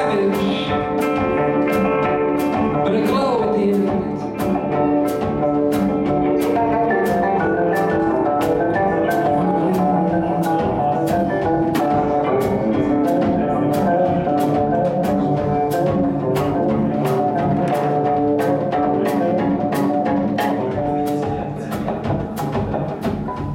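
Instrumental live band: electric guitar and oud play long, ringing notes over drums that keep a steady tick about twice a second.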